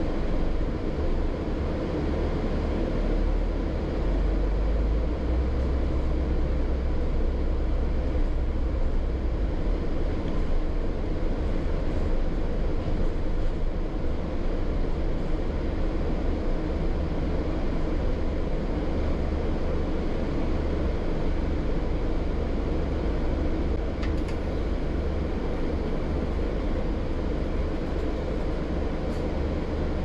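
Steady low rumble of a double-decker bus in motion, engine and road noise heard from inside on the upper deck, with a couple of faint ticks near the end.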